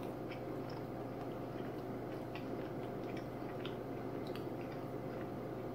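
Faint sounds of a man chewing a bite of cheese-topped pizza crust, with a few scattered soft clicks over a steady low hum.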